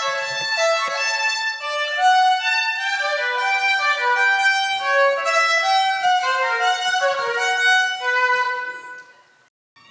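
A violin playing a flowing melody of quick successive notes, which fades away a little before the end.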